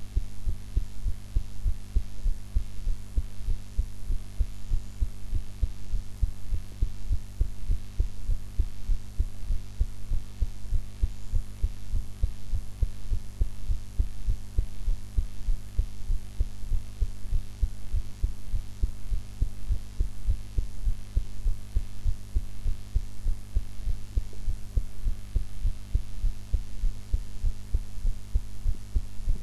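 A woman's heart beating steadily, as a regular series of low thumps, with a steady low hum underneath.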